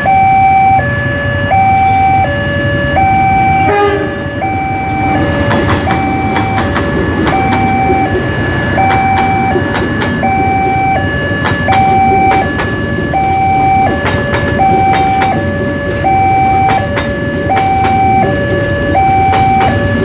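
Railway level-crossing warning alarm sounding its electronic two-tone signal, a higher and a lower tone alternating about every three quarters of a second. Beneath it run the rumble and clatter of a passing diesel-hauled passenger train's coaches.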